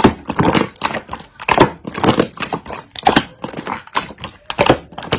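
Slime being squeezed and pressed by hand, making irregular wet clicks and crackling pops several times a second.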